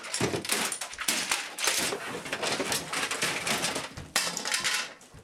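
Hard plastic clattering and knocking as a CRT computer monitor is struck and pulled about, a rapid run of sharp knocks with a louder bang about four seconds in.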